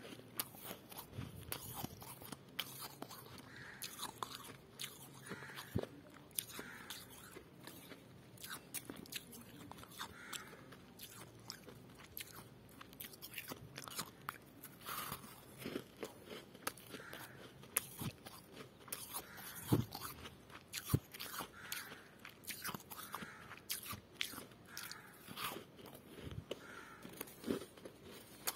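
Freezer frost being bitten and chewed, giving crisp, irregular crunches and crackles.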